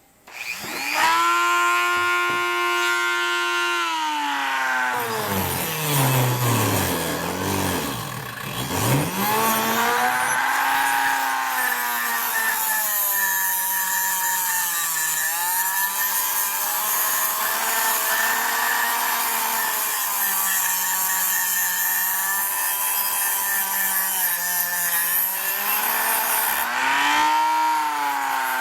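An electric power tool motor starts up and runs with a steady whine; a few seconds in its pitch sags deeply and climbs back, then it runs on with small dips in pitch as it is loaded, the sign of the tool being pressed into work on the cleaver's steel.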